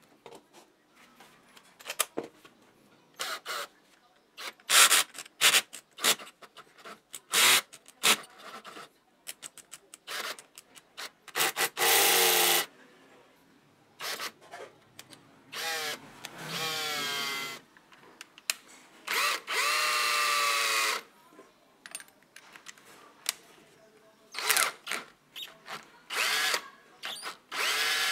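Restored DeWalt XRP 18V cordless drill (DW988) test-run in trigger pulls. Short blips and clicks come first, then runs of a second or two with a steady motor whine. On one run the whine rises as the motor spins up.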